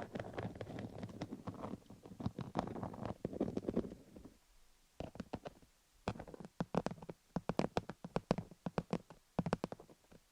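MTS microneedle roller rolled over a rhinestone-covered dummy-head microphone, making dense crackly clicking and scratching strokes. There is a short pause a little before halfway.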